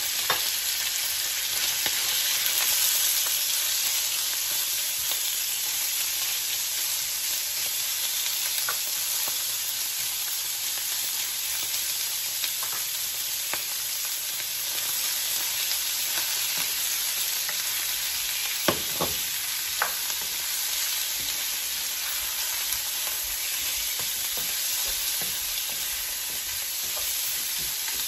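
Pork pieces sizzling as they brown in hot coconut oil in a cast-iron skillet, a steady frying hiss, stirred now and then with a spatula. Two sharper knocks come about two-thirds of the way through.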